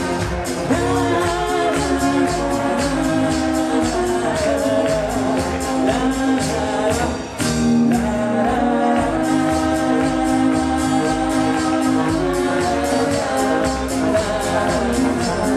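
Brass band playing a lively tune with a steady beat, with voices singing along, and a short break about halfway through.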